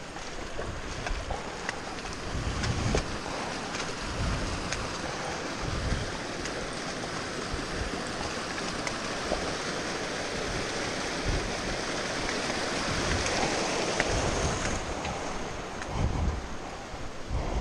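Small mountain stream rushing over rocks, swelling louder about three-quarters of the way through and then easing off, with dull footsteps on a rocky trail every second or two.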